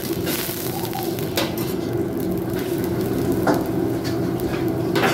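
Curry stock with chicken and vegetables boiling hard in a steel wok, a steady bubbling hiss over a low hum. A metal ladle stirs it, knocking and scraping against the wok about four times.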